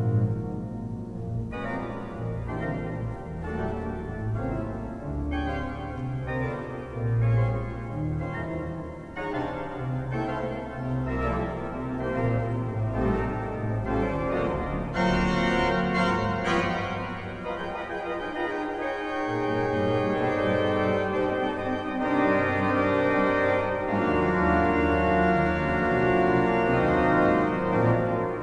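Church pipe organ playing a jazz-standard arrangement: full sustained chords over a deep pedal bass, changing every second or two. About fifteen seconds in, bright high notes come in for a moment.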